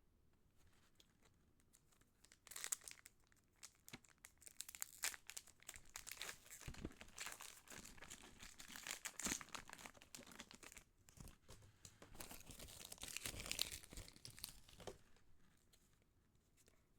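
Foil wrapper of a Pokémon booster pack being torn open and crinkled, a dense run of crackling that starts about two and a half seconds in and dies away a couple of seconds before the end.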